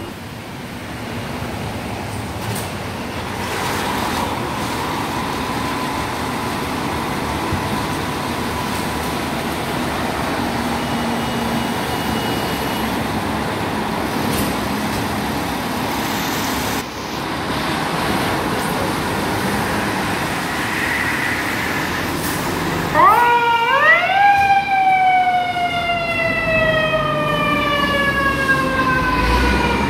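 Fire apparatus running in a firehouse bay, then a fire engine siren starts near the end: it winds up sharply in a few quick pulses, then slowly winds down, and begins to wind up again.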